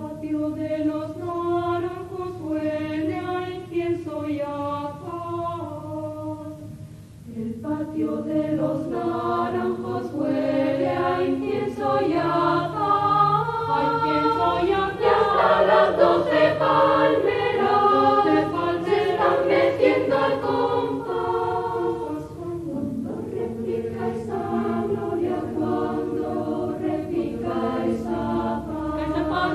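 Youth choir singing in parts. The first several seconds are a lighter passage; after a short dip about seven seconds in, the full choir comes in louder.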